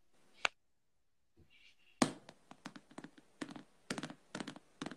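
A faint single tap about half a second in, then from about two seconds in a quick, irregular run of soft taps and knocks.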